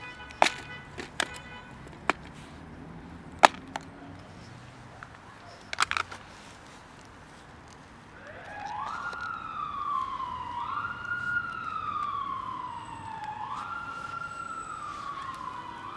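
A few sharp clicks and knocks of plastic food containers being handled in the first six seconds. Then, from about eight seconds in, an emergency-vehicle siren wails, loudest of all, each cycle rising quickly and sliding slowly down, repeating every two to three seconds.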